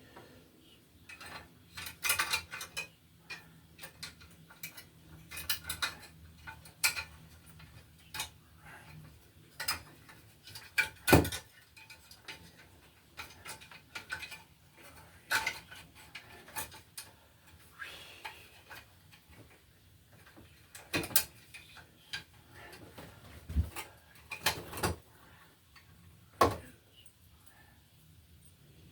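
Electrical box and its fittings being worked with hand tools: irregular clicks, taps and metallic clinks, with a sharp knock about eleven seconds in and a few more in the last third.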